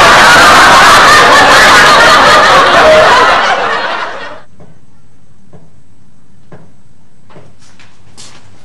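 Sitcom laugh track: a crowd of audience laughter, loud at first and fading out about four seconds in, followed by a quiet stretch with a few faint ticks.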